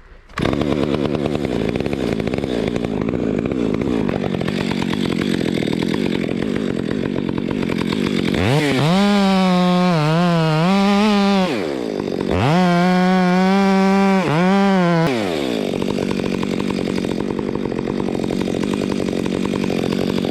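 Two-stroke chainsaw idling, then run up to full throttle twice for about three seconds each, its pitch wavering under load, before dropping back to idle. It is cutting the last standing section of a dead pine trunk.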